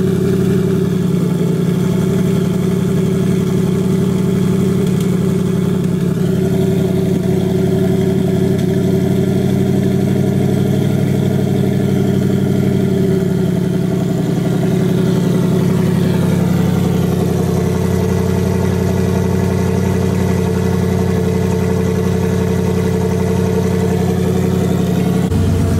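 Turbocharged 2018 Ford Mustang GT's 5.0 Coyote V8 idling, its exhaust dumped straight out through the hood, with the idle speed shifting slightly now and then. Under it is the engine tick known on 2018–2019 Mustang GTs, which the owner says the hood-exit exhaust makes louder.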